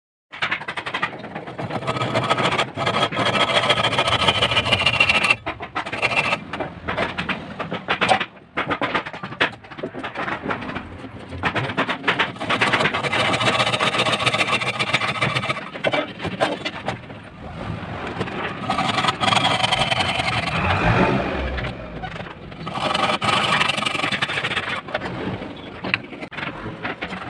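Hand saw cutting through a wooden block clamped in a vise, a rasping back-and-forth in several bouts with short pauses.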